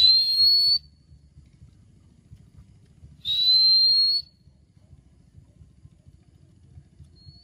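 Two high whistled notes, each slightly rising and just under a second long, about three seconds apart.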